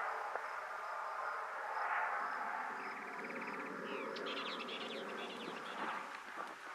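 Twin-engine propeller fire bomber droning as it flies off, the sound fading. High chirping calls come over it, with a brief rapid trill about three seconds in and a cluster of chirps about four seconds in.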